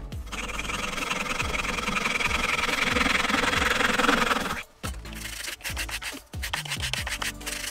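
Handsaw laid flat on a board, flush-cutting protruding wooden pins with quick, fine strokes: a steady rasp of fine teeth in wood that stops abruptly about four and a half seconds in. Quieter background music follows.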